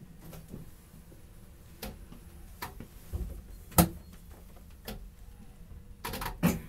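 Interior of a Kintetsu 22000 series ACE train car at the deck end: scattered irregular clicks and knocks over a low steady rumble. There is one sharp knock about four seconds in and a few more near the end. No motor whine rises or falls.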